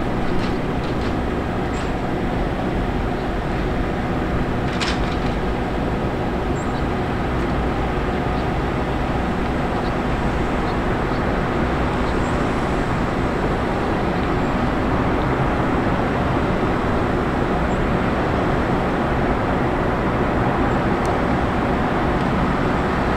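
Steady drone of aircraft ground support machinery running beside a parked airliner-sized turboprop whose engines are off, with a short knock about five seconds in.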